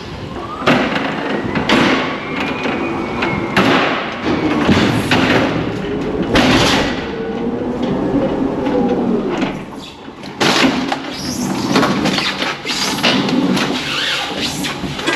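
Electric pallet jack rolling a loaded pallet of crates into a trailer: repeated clattering knocks and bangs, with a couple of drawn-out squeals, one near the start and one around the middle.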